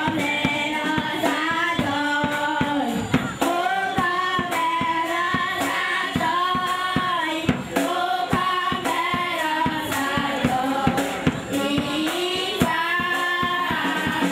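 A group of children and women singing together through microphones and loudspeakers, over a steady percussive beat.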